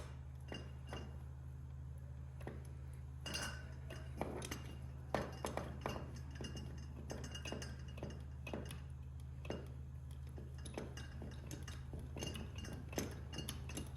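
Grease gun being handled and worked: scattered, irregular light metallic clinks and clicks over a steady low hum.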